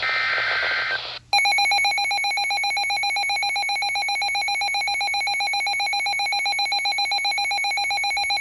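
The last burst of a NOAA Weather Radio SAME digital header, a short screechy data tone. About a second in, an electronic alert alarm starts: a loud, rapid trilling tone much like a ringing telephone, held steady until it stops near the end.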